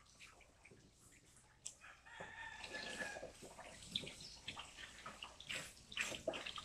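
Water from a hose spray nozzle splashing and dripping into a plastic tub as a dog is rinsed, with a rooster crowing once about two seconds in, for about a second.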